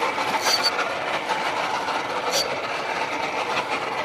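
Steady rushing noise on a boat at sea while a rod is bent under a heavy fish, with two short, sharp high clicks about two seconds apart.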